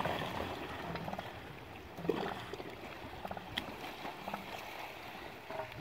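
Young elephant seals sparring in shallow water: splashing and sloshing as they rear up and drop against each other, over a steady watery wash.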